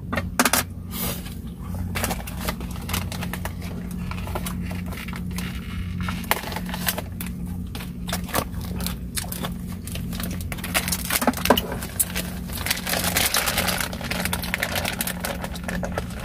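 Plastic food packaging being handled and torn open: crinkling, scraping and many short clicks, over a steady low hum.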